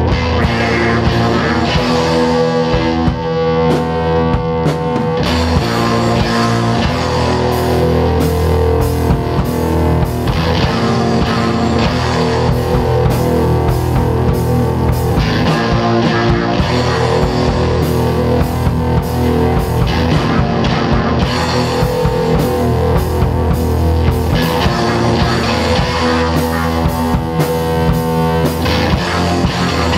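Heavy rock band recording playing: electric guitars and bass over a drum kit keeping a steady beat.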